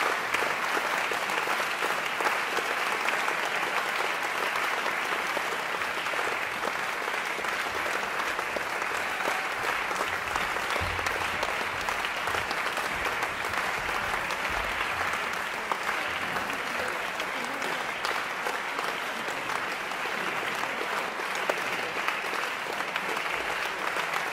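A concert audience applauding steadily.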